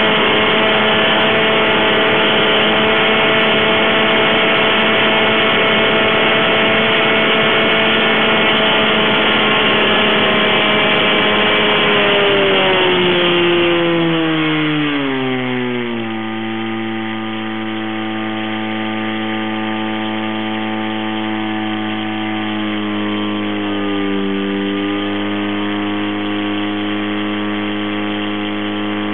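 Turbocharged all-aluminium two-rotor Mazda rotary aircraft engine, about 650 hp, turning its propeller through a reduction gearbox on a ground run at full power with 51 inches of manifold pressure. About 12 seconds in, the engine note falls over a few seconds to a steady lower speed, with a brief dip later on.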